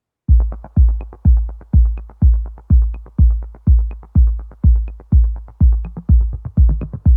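Background electronic music with a steady drum-machine beat: a heavy bass kick about twice a second and quick hi-hat ticks between.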